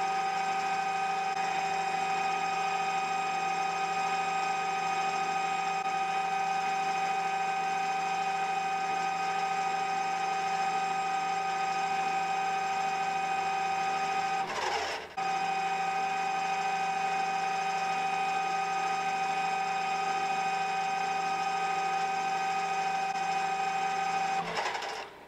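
CQ9332A bench lathe running with a steady whine of several fixed tones. About 15 s in the sound briefly drops and sags in pitch, then comes straight back; near the end it winds down and stops.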